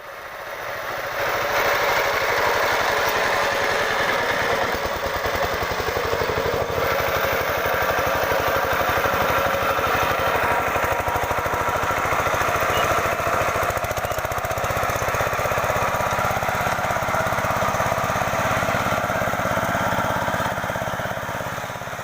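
Kamco 120 DI power tiller's single-cylinder diesel engine running steadily, its clogged air filter just cleaned in diesel and refitted. The sound rises over the first second or two and tails off near the end.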